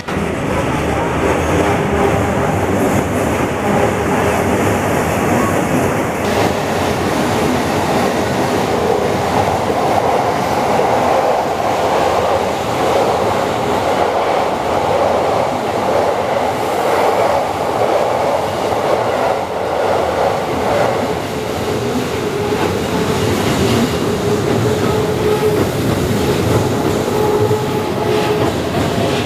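Electric trains running past on the tracks at a level crossing: a steady, loud rumble and clatter of wheels on rail, with a rising whine from a train near the end.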